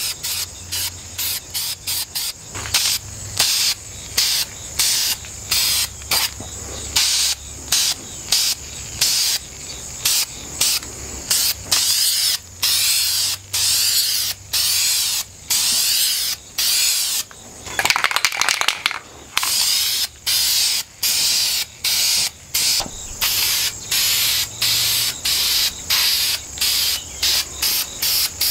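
Aerosol spray can of gloss red paint hissing in many short bursts, about two a second, with one longer burst past the middle, as the paint goes onto the wheel.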